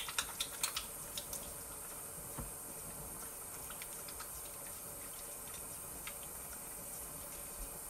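Kitchen faucet running a thin, steady stream into the sink while hands are washed, with small splashes and drips. Most of these come in the first second and a half, with a few later.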